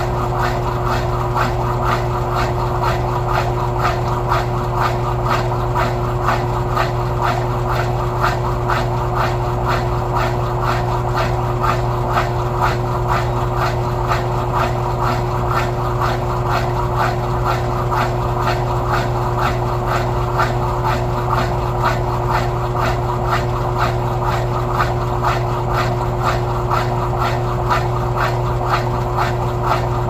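Electrolux Turbo Economia LTE06 6 kg top-loading washing machine running, a steady motor hum with a fine rapid chatter over it.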